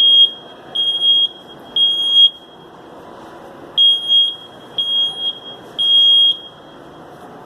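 Smoke alarm sounding the three-beep fire evacuation pattern: three loud, high-pitched beeps about a second apart, a pause, then three more.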